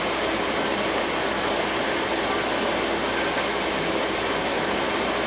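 Steady, even rushing noise of a fan or ventilation running, with no distinct knocks or clinks over it.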